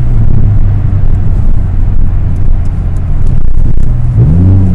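Loud exhaust drone of an Oldsmobile Alero heard from inside the cabin while driving. It is pretty loud and is the reason the muffler is being replaced. About four seconds in, the engine note rises and then holds.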